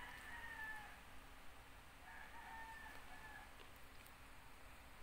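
A rooster crowing twice, faintly: one crow ends about a second in, and a second crow of about a second and a half follows about two seconds in.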